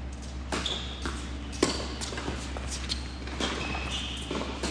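Tennis balls being struck by rackets and bouncing on a hard court during a doubles rally: a series of sharp pops, the loudest about one and a half seconds in, with a few brief shoe squeaks, over a steady low hum.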